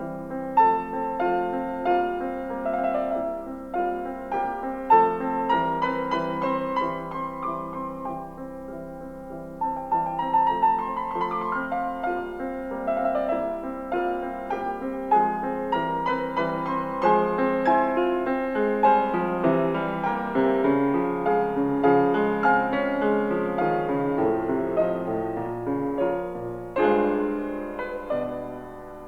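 Piano music: a melody of single notes over chords, playing without a break.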